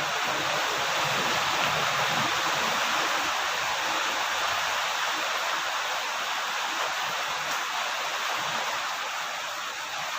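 Steady rain falling, an even hiss that runs without breaks or change.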